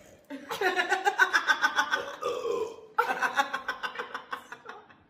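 A person belching from gulped carbonated soda (Sprite): two long, pulsing burps back to back, each about two seconds.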